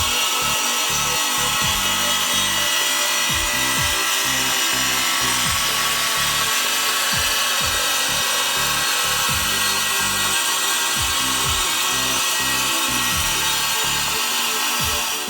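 A power tool running steadily, a continuous cutting or grinding noise that stops abruptly at the end, over background electronic music with a steady beat.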